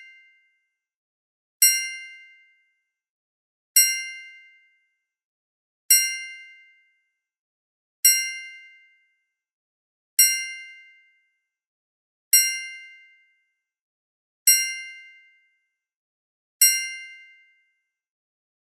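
A bell-like metallic ding struck eight times, about once every two seconds, each strike starting sharply and fading out within about a second.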